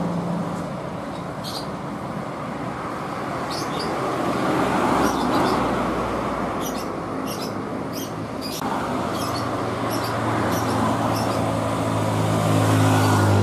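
Road traffic passing: tyre noise and engines of cars, motorcycles and trucks. A deep, steady diesel truck engine hum grows louder over the last few seconds as two box trucks come close. Short high chirps recur throughout.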